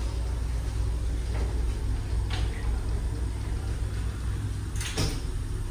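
Steady low drone of a passenger ship's engines heard inside the vessel, with three short sharp knocks, the loudest about five seconds in.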